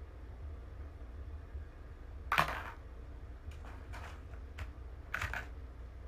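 A kitten sneezing: one short, sharp burst about two seconds in, the loudest sound here. A second, weaker sharp burst comes near the end, with a few faint clicks between, over a steady low hum.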